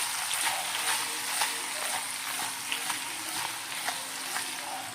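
Stuffed brinjals and potatoes sizzling in hot tempered oil in a pressure cooker as they are stirred: a steady crackling sizzle with a few light clicks.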